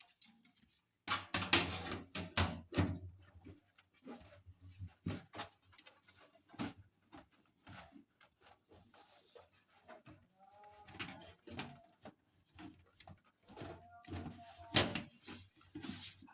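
Desktop PC case side cover being fitted back on: a string of sharp knocks, clicks and scrapes, loudest about a second in and again near the end.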